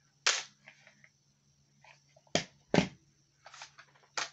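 The action of an IWI Tavor 5.56/.223 bullpup rifle being worked by hand to show it is clear: a brief rattle near the start, then two sharp clacks less than half a second apart a little past halfway, and a few lighter clicks near the end.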